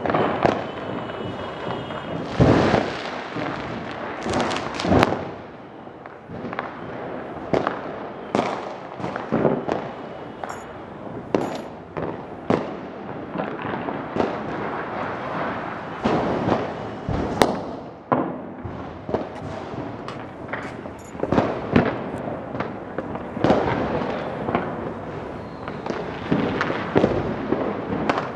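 Firecrackers and fireworks going off all around at once, a continuous irregular crackle of bangs near and far, with a few louder sharp reports standing out.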